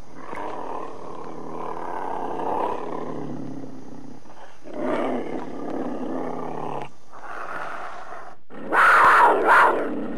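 A monster's roar, a lion-like growling sound effect: long growls with short breaks, then two louder, harsher roars near the end.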